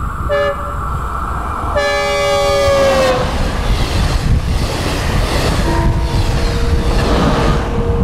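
Synthesized recreation of a Nathan K2 five-chime train horn passing with a Doppler effect. A short blast comes first, then a long blast about two seconds in that drops in pitch as it goes by. A rushing train noise follows, and the horn chord sounds again, lower, near the end, all over a steady low rumble.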